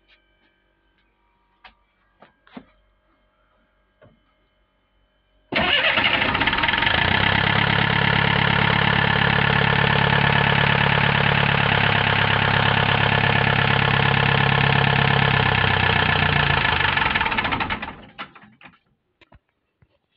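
Mercedes-Benz OM314 four-cylinder diesel engine starting suddenly about five seconds in and running steadily for about twelve seconds with a loud diesel clatter. It is then shut off and runs down, leaving only faint ticks.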